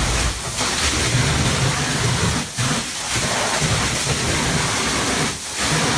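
A 2.5-inch fire attack line with a 1 1/8-inch smooth-bore tip flowing a solid stream, a steady heavy rush of water striking the ceiling and walls and splashing down like a downpour. The noise dips briefly three times.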